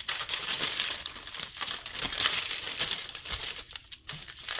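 Continuous crinkling and rustling of wrapping material being handled, with a short break near the end.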